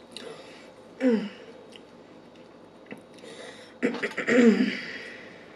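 A woman chewing a bite of Scotch egg close to the microphone. She gives a short throat sound about a second in, then a louder throat-clearing near four seconds in.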